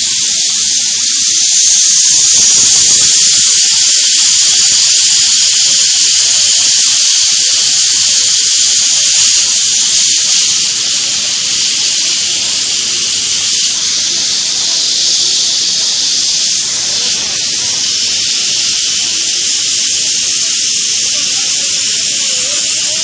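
Loud, steady high-pitched hiss from blast furnace plant equipment, swelling slightly a couple of seconds in.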